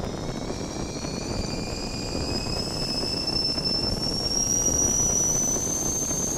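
Stovetop kettle whistling at the boil: a shrill whistle of several tones rising slowly in pitch and growing louder, over a steady rushing noise.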